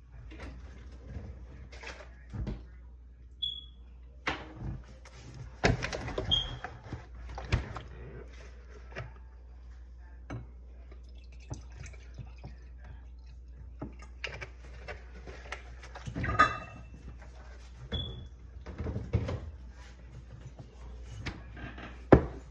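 Close-up eating sounds of a dry powdered starch mixture: irregular chewing clicks, soft lip smacks and occasional knocks, with a few brief high squeaks.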